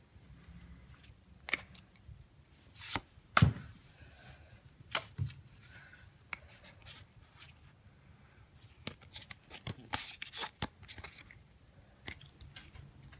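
Pokémon trading cards handled by hand: a scattering of light clicks and soft slides as cards are flicked and moved against each other and the table.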